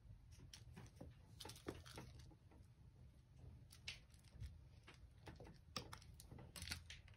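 Very quiet room with a few faint, scattered taps and scuffs from a kitten's paws and claws on a laminate floor as it pounces on a toy mouse on a string.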